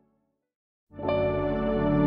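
About a second of silence, then ambient new-age background music fades in quickly with sustained, layered tones that hold steady.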